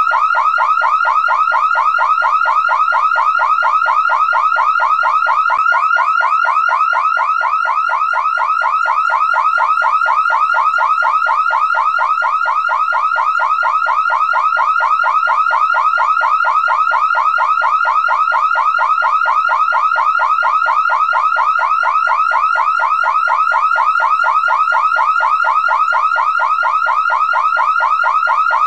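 Car alarm siren sounding continuously: a loud, fast pitch sweep repeating several times a second, unchanging throughout.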